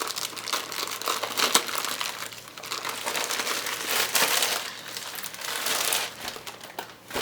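Packaging of a diamond-painting kit crinkling and rustling as it is opened by hand, an irregular run of crackles with louder bursts about one, four and six seconds in.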